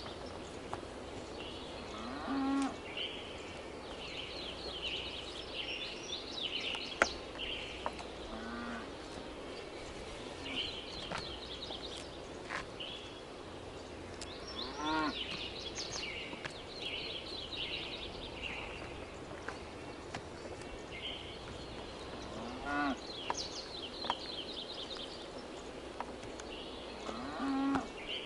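Cattle mooing: about five short calls, each rising in pitch, spaced several seconds apart, over steady high-pitched chirping.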